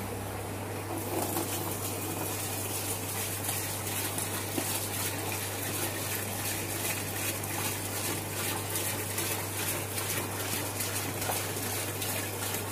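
Water pouring in a steady stream from a 25-litre plastic jerrycan into a plastic bucket, splashing as the bucket fills. The pour starts about a second in.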